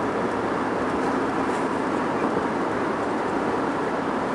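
Steady road noise of a moving car mixed with the rumble of a double-stack freight train rolling alongside.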